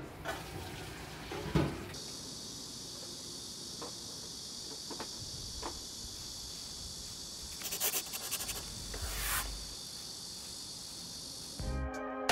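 Steady high-pitched insect chirring that starts about two seconds in and runs unbroken, with a few scattered clicks and taps. Guitar music comes in near the end.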